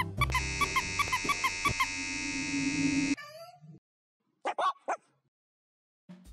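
Background music with mallet-like notes, overlaid by a long harsh buzzer sound effect that cuts off suddenly about three seconds in. After a pause comes a short cartoon 'gulp' sound effect, a quick wobbling tone, then silence.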